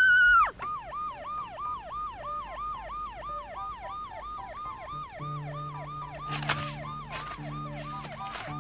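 Ambulance siren sound effect, a fast yelping wail rising and falling about three times a second. It opens with a brief, loud high-pitched squeal, and from about halfway a low droning tone joins, cutting in and out.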